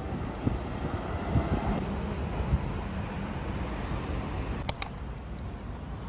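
City street ambience: steady traffic noise from a road, with two sharp clicks close together about four and a half seconds in.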